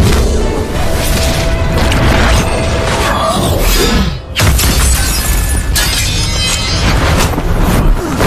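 Dramatic orchestral score over booming impact effects of a magical sword attack. The sound briefly drops away about four seconds in, then comes back with a sudden heavy boom.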